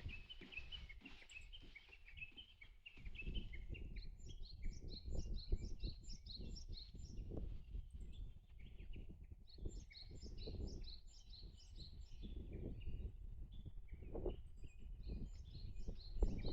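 A songbird singing phrases of quick, high repeated notes, three times, each about two seconds long, with another bird's lower twittering in the first couple of seconds. Low rustling and soft knocks run underneath.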